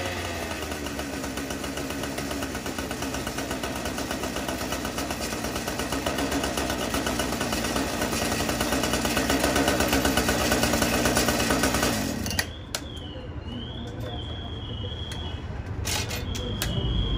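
Several Husqvarna K970 Rescue cut-off saws, two-stroke petrol engines, running together with their blades spinning. The sound is steady and builds a little louder, then cuts off suddenly about twelve seconds in, leaving a quieter low engine hum.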